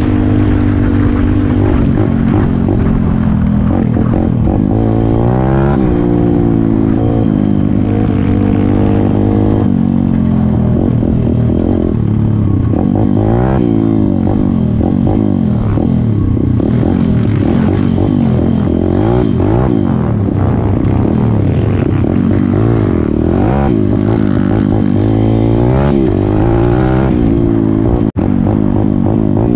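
Single-cylinder four-stroke pit bike engine under way, heard up close from the rider's seat, revving up and easing off again and again as it is ridden hard along a rough path. The sound drops out briefly near the end.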